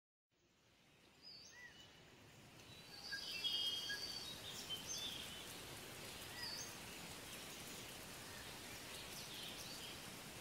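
Outdoor ambience fading in from silence: a steady hiss with short, high animal chirps and whistles, most of them in the first half.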